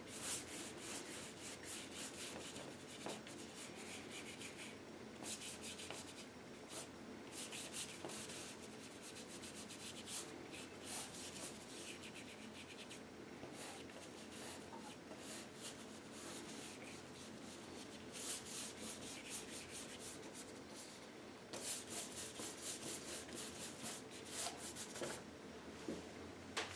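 Faint, rapid scratchy strokes of a paintbrush working acrylic paint onto the painting, in quick runs with short pauses between them.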